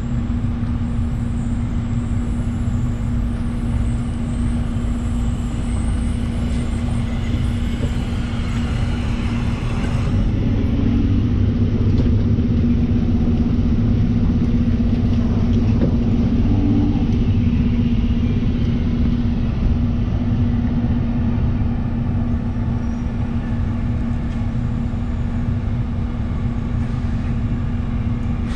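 Scania city bus's diesel engine idling while the bus stands still, a steady low hum and rumble heard from outside the bus body. A tram passes close alongside about halfway through, making the sound a little louder for several seconds.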